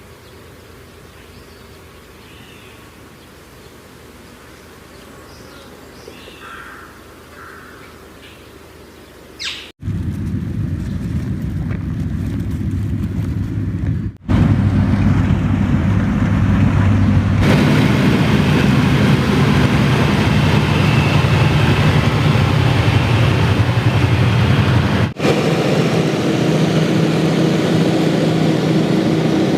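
A few faint bird chirps over quiet outdoor background. Then, about ten seconds in, a loud engine starts running steadily, broken by sudden cuts, and keeps going to the end.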